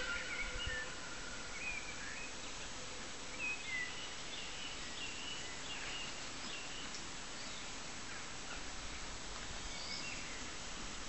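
Small birds chirping and singing in short scattered calls over a faint steady outdoor background, while the last of a distant train whistle fades out in the first two seconds.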